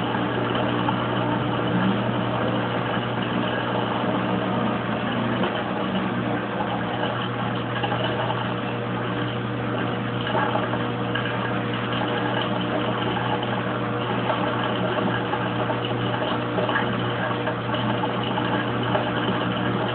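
Kenmore Oasis top-load washer's drain pump running steadily, pumping water out of the tub during the drain stage.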